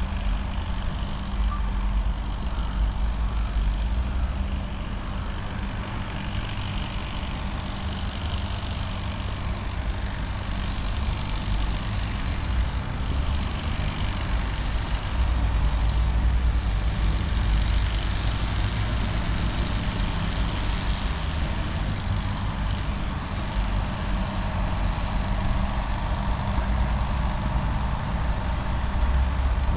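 City street traffic: a continuous low rumble of vehicle engines and tyres, rising and falling as vehicles pass.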